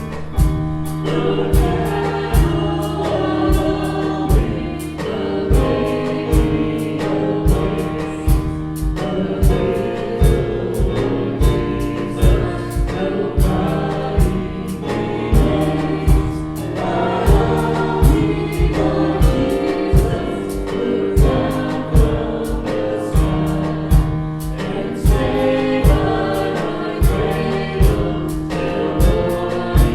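Gospel music with a choir singing over a steady drum beat.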